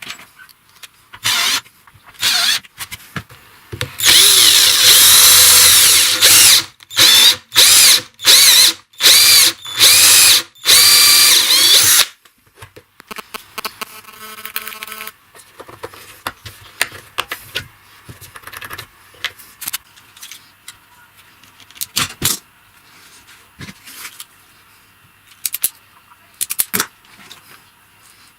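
Handheld power drill run in repeated trigger bursts, its pitch gliding up and down. The longest run starts about four seconds in, and the bursts stop about twelve seconds in. After that come only light clicks and taps of tool handling.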